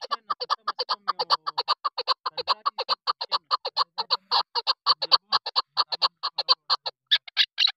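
Chukar partridge calling: a rapid, steady run of short chuk notes, about seven a second, that turn higher and louder near the end.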